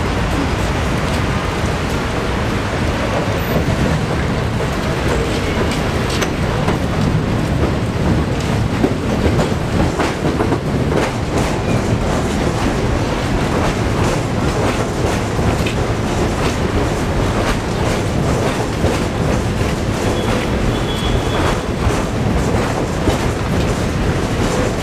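Budd R32 subway train running past along the platform: a steady rumble with many quick clicks of wheels over rail joints.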